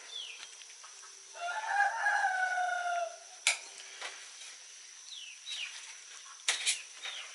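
A rooster crowing once: a single drawn-out call of about two seconds that drops slightly in pitch toward its end. Short high chirps of small birds and a few sharp clicks sound around it.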